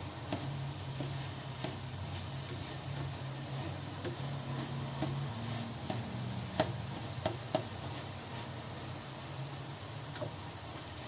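Minced meat and onion frying in a pan, with a slotted spatula stirring and scraping through it, giving scattered clicks and taps against the pan over a faint sizzle. A steady low hum runs underneath.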